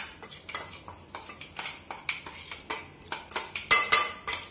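Stainless steel mixer-grinder jar clinking and scraping against a steel plate as ground masala powder is scraped and tapped out of it: a run of quick metallic taps, about two or three a second, the loudest near the end with a short ring.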